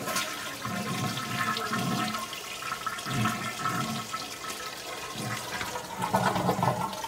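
A toilet flushing: water running steadily through the bowl, falling off near the end.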